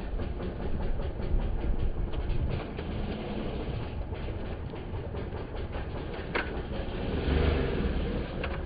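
Enduro dirt bike engine running at low revs with uneven throttle blips as the bike is hopped over logs. A few sharp knocks are heard, and the engine is louder near the end.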